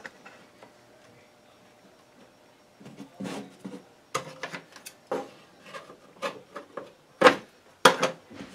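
Self-adhesive fiberglass mesh drywall tape being peeled off its roll and rubbed down onto the wall by hand: irregular short rubbing and crackling noises starting about three seconds in, the two loudest near the end.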